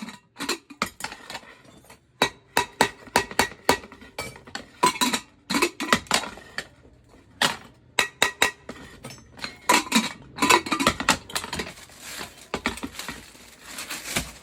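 Metal kitchenware clinking and clanking as it is handled and knocked together: many sharp, irregular strikes with a short ring after some of them.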